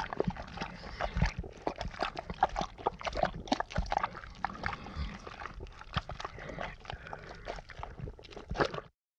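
Thick, gooey ooze bubbling, with dense irregular wet pops and squelches; it cuts off suddenly near the end.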